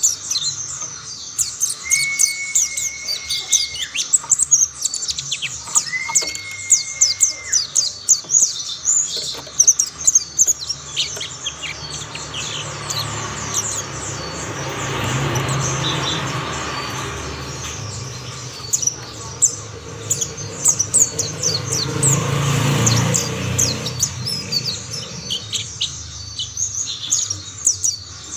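Mountain white-eyes singing: dense, rapid high-pitched twittering chirps throughout. Two long steady whistled tones sound in the first several seconds, and a rushing noise with a low rumble swells and fades twice, in the middle and again near the end.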